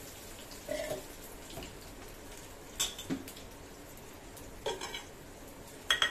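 Pakoras frying in a pan of hot oil with a steady sizzle, while a metal spatula clinks against the pans a few times.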